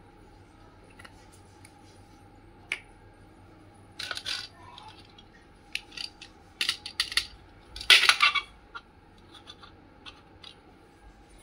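Small plastic toy kitchen pieces handled on a tabletop: a lid clicking open and shut, and pieces clacking as they are picked up and set down in short scattered clusters, loudest about 8 seconds in.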